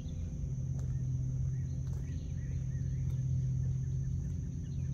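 Birds chirping in short calls over a steady low hum.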